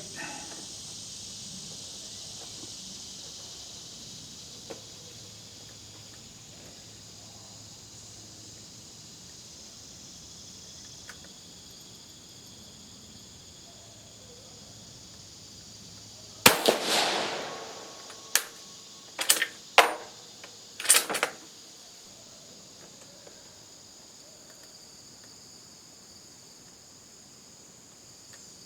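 A single rifle shot from an Italian Vetterli 1870/87/15 rifle rebored for 6.5 mm, firing a cast-bullet load, about halfway through, with a short echoing tail. A quick series of sharp clacks follows over the next few seconds.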